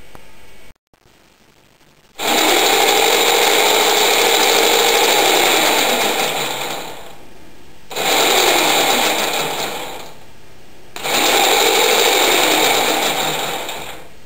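A homemade electric bike's chain drive, powered by an electric fan motor through a small sprocket and a large chainring, run three times: each run starts abruptly with a mechanical whir and chain rattle, then fades as the motor winds down.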